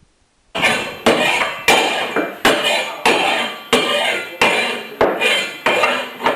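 Hammer blows, about ten evenly spaced strikes roughly every two-thirds of a second, each with a short ringing decay, starting about half a second in.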